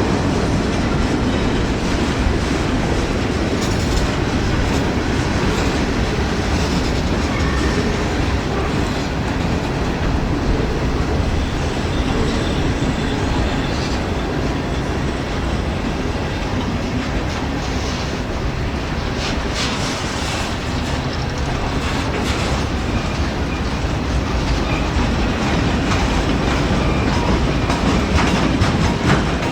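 CSX freight train cars rolling past with a steady rumble, the wheels clicking over rail joints here and there.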